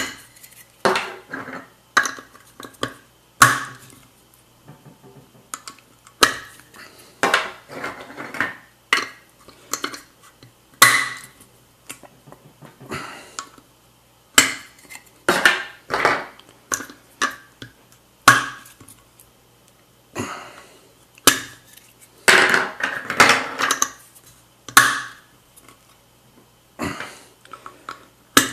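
Irregular clicks, knocks and scrapes of a Mugen CF-48 wheel center cap being pressed and worked by hand into an alloy wheel's center bore, the cap's edge knocking against the wheel.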